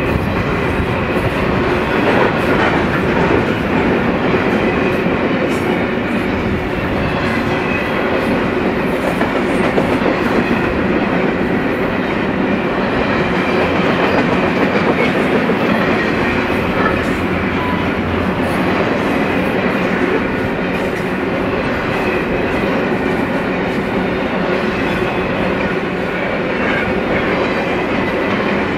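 Double-stack intermodal well cars of a freight train rolling past: a steady, loud rumble and clatter of steel wheels on the rails.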